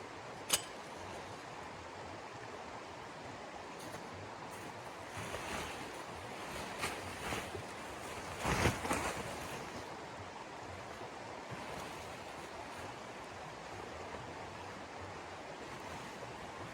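Steady wind-like rushing noise, with one sharp click about half a second in and a few louder swells near the middle.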